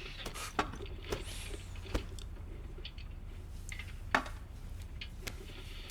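Quiet room ambience with a steady low hum, broken by a few soft clicks and taps of small objects being handled, the sharpest about four seconds in.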